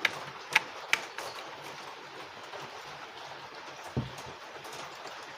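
Three sharp clicks in the first second and a single dull knock about four seconds in, over a low steady hiss: the car stereo's circuit board being handled and fitted back in place before power is connected.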